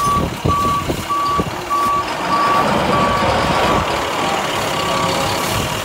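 Truck back-up alarm beeping in an even series, about one and a half beeps a second, over the truck's engine running as the flatbed reverses; the beeping stops near the end.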